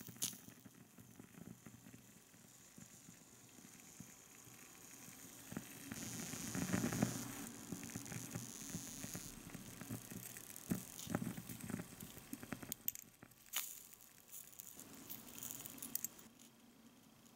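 Faint sizzling of matcha pancake batter cooking in a tiny pan, with a few small clicks of a metal spoon and fork against the pan in the second half.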